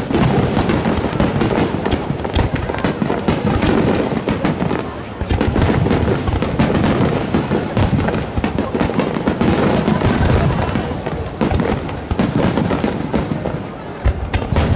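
Fireworks starmine barrage: many aerial shells launching and bursting in rapid, overlapping bangs and crackles, with a brief lull about five seconds in.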